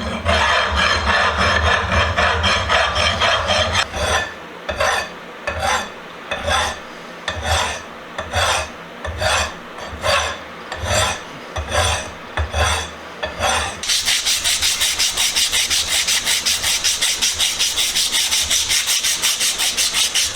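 Hand file rasping across the steel of an anvil vise while it is filed flat. Close continuous strokes at first, then separate strokes about one and a half a second, then quick, brighter strokes for the last six seconds.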